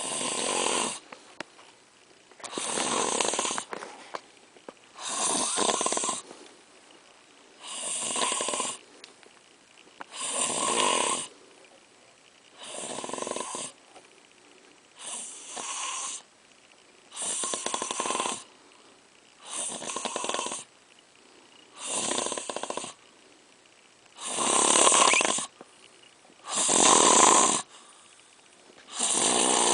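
Loud, regular snoring: a rasping snore about a second long, repeating roughly every two and a half seconds, about twelve times. The last few are the loudest.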